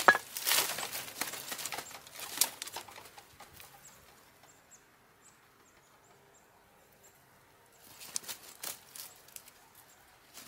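Cut branches rustling, cracking and clattering as they are handled and dragged through the brush pile, in two spells with a lull between them. In the lull a few faint, high bird chirps are heard.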